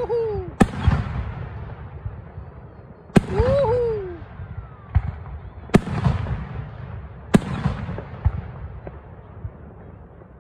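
Aerial firework shells bursting overhead: four loud bangs about two to three seconds apart, each trailing off, with fainter pops and crackle between them.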